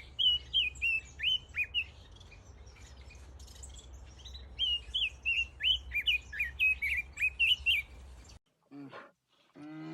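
Small bird chirping in two quick runs of short, sharply falling notes over a low background rumble. The clip cuts off abruptly; after it, near the end, a short, lower-pitched animal call begins.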